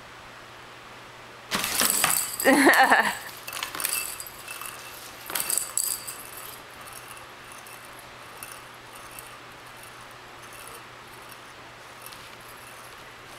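Kittens clattering about on a plastic rocking cat toy: a sudden loud rattling about a second and a half in, a second burst around five seconds, then faint light ticks as the toy and its dangling ball settle.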